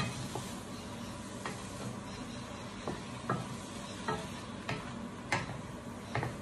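Sliced bitter melon and egg sizzling in a nonstick wok as a wooden spatula stir-fries it, with a string of irregular knocks and scrapes of the spatula against the pan.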